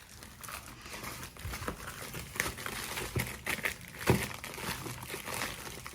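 Parcel packaging crinkling and rustling as hands handle it and work at opening it, with irregular crackles and a few sharper snaps.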